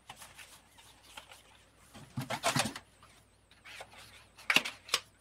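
Hands working at a plastic compact powder case that is hard to open: faint rustling and tapping, a louder scuffle about two seconds in, and two sharp plastic clicks near the end.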